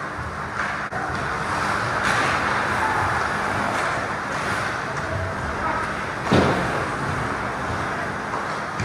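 Ice hockey play in a rink: a continuous wash of skates carving and scraping the ice and distant rink noise, broken by one sharp knock about six seconds in.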